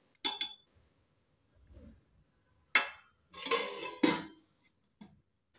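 Steel spoon clinking against a steel cooking pot, then a steel lid set onto the pot with a scrape and a sharp clank about four seconds in.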